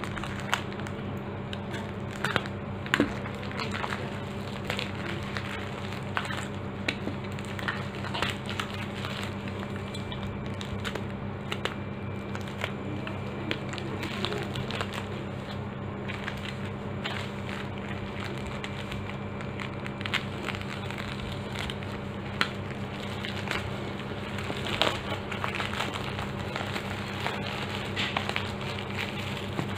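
Plastic courier mailer being cut open and torn by hand, crinkling and crackling with scattered sharp clicks, as a bubble-wrapped package is pulled out.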